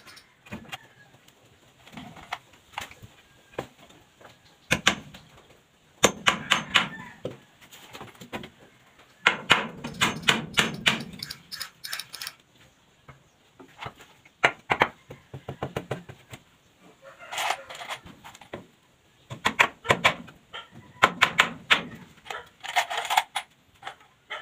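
Hammer driving nails into the wooden formwork boards of a concrete sink. The blows come in bursts of several quick strikes, separated by short pauses, with the longest run of blows around the middle.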